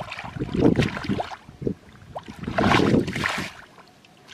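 Shallow muddy pond water sloshing and splashing as a person wades and gropes through it with hands and legs, in two main surges: one about half a second in and a louder one around three seconds in.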